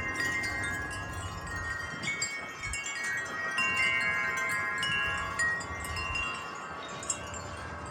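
Wind chimes ringing in gusty wind: many tubes struck irregularly, their long overlapping tones ringing on, over a low rush of wind.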